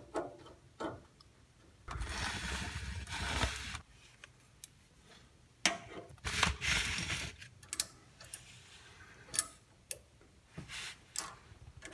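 Hand work on a car's steering linkage: scattered clicks and taps of tools and metal parts, with two longer rustling noises, one about two seconds in and one past the middle.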